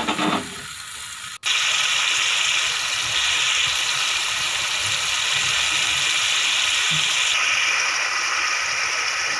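Onion, tomato and spice masala in ghee with added water boiling in a metal pan: a steady sizzling, bubbling hiss that cuts in suddenly about a second and a half in.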